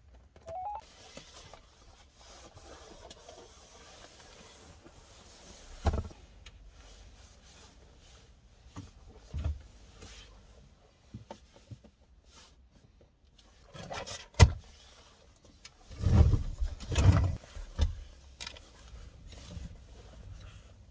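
Kia Carnival second-row seat being pushed forward and handled: scattered clunks and clicks, with a sharp loud click about two-thirds in, then a couple of seconds of rumbling sliding and thuds.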